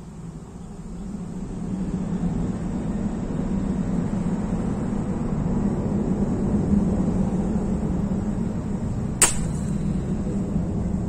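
A steady low rumble, growing louder about two seconds in, with one sharp crack near the end from an airgun shot at the card.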